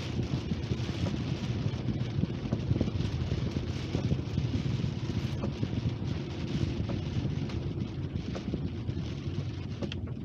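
Car interior while driving in heavy rain: a steady low road and engine rumble with tyre hiss from the wet road, and many small ticks of rain striking the windscreen.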